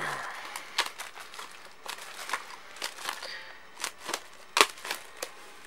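Plastic shrink wrap crinkling and crackling in irregular sharp snaps as it is torn and peeled off a DVD case.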